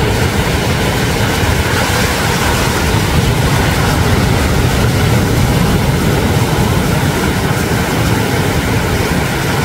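Sea surf rushing steadily and loudly, an even roar without distinct breaks.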